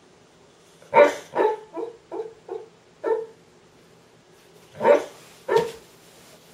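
A Boxer dog woofing in its sleep while dreaming: a run of six short woofs starting about a second in, then two more near the end.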